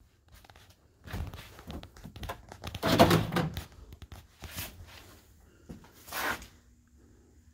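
Movement and handling noise as someone walks through a doorway: a run of irregular knocks, thunks and rustles, loudest about three seconds in. A faint steady hum starts near the end.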